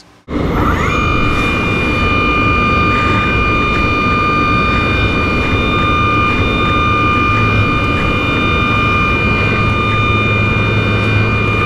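A five-axis CNC machining center reaming blind holes in 4140 alloy steel with a right-hand helical-flute reamer at 80% feed. A steady high spindle whine rises briefly as it comes up to speed about a second in, then holds over the hiss of through-tool coolant spray and a low machine hum.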